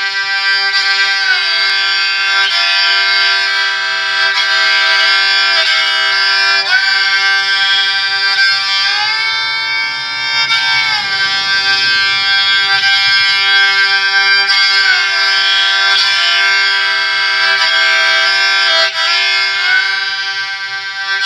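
Handmade bowed stick fiddle with strings tuned to D and G, played with a long bow. A melody with sliding notes runs over one steady drone note held throughout.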